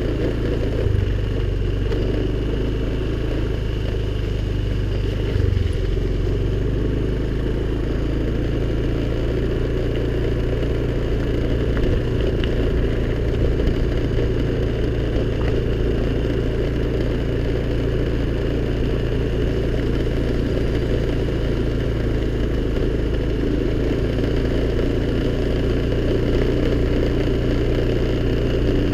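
Honda scooter engine running steadily while riding, a constant low drone.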